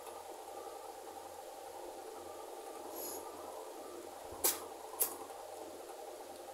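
A person eating rice and fish by hand, with two sharp mouth smacks about half a second apart while chewing, over a steady low hum.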